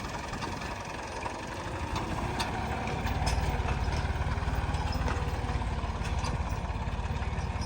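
Diesel engine running steadily with a throbbing pulse, getting louder about three seconds in.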